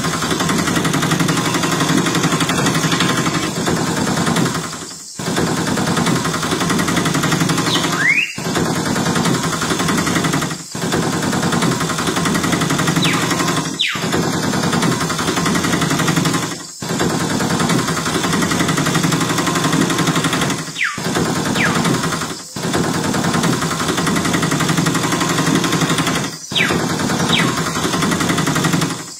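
Rapid, steady mechanical rattling like a small motor running, dropping out briefly every few seconds, with short rising chirps at some of the breaks.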